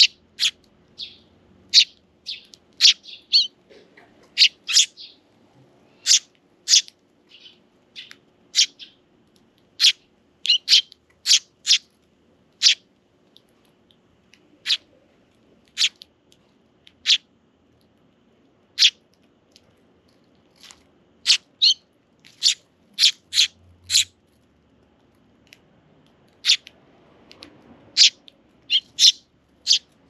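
Eurasian tree sparrows chirping: many short, sharp, high chirps, scattered irregularly at about one or two a second.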